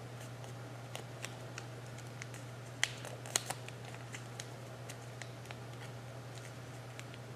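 Sheet of origami paper being folded and creased by hand: scattered light ticks and soft rustles, two sharper clicks about three seconds in, over a steady low hum.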